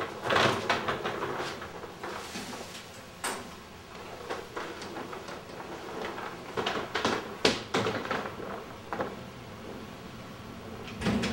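Footsteps and rustling clothing as a person walks off, with a run of sharp clicks and knocks from a door being opened and handled, and a duller thump near the end.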